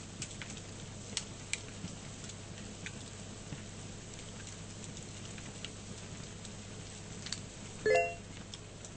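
Steady low hum and hiss with a few faint scattered clicks, and one short high-pitched beep-like tone near the end.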